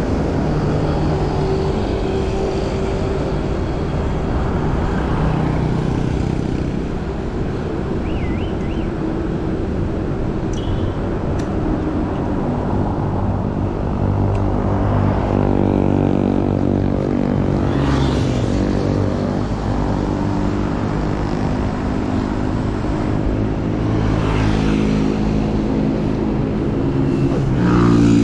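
Busy road traffic close by: engines of cars and larger vehicles running and passing, several engine hums shifting in pitch over a steady road-noise hiss. It grows louder near the end.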